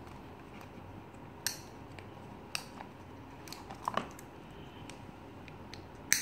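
Small plastic fidget cube worked by hand: a handful of separate sharp clicks spread over a few seconds, the loudest near the end.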